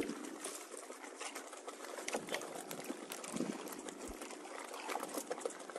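Water sloshing and trickling, with many small irregular clicks and splashes.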